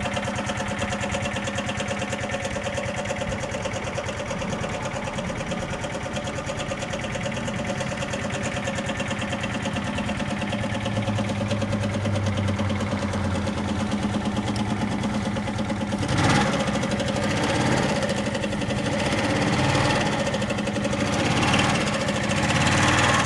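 Suzuki Gemma 125 scooter engine idling steadily, then revved in short throttle blips about five times over the last seven seconds.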